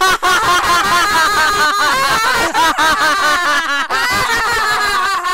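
Several voices laughing hard together in one long overlapping burst of laughter.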